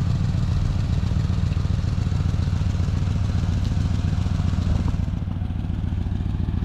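Engine of a Mercury Mountaineer (a Ford Explorer twin) running steadily at low speed as the truck rolls slowly past, a low, even pulsing exhaust note.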